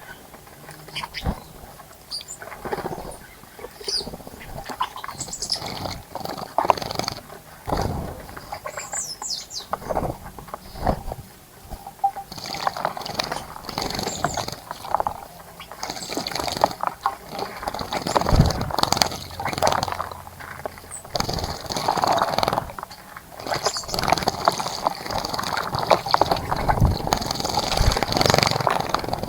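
Birds bathing in a birdbath: a string of irregular water splashes that grows busier and louder partway through, with birds chirping over it.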